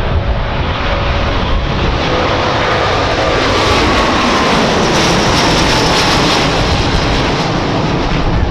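Airbus A350-900 airliner's Rolls-Royce Trent XWB turbofans heard as the jet flies by in a low display pass: a steady, loud jet rumble with a faint whine that falls in pitch through the middle of the pass.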